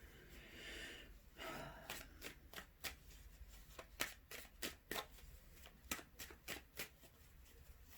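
Tarot cards being shuffled by hand: faint, crisp card snaps coming about two a second, after a soft sliding sound in the first couple of seconds.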